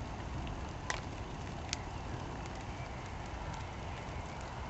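Wind buffeting the camera microphone, a steady low rumble, with two sharp clicks about a second in and just under two seconds in.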